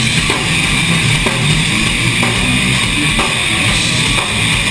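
Live rock band playing loud, with a drum kit keeping a steady beat under electric guitars.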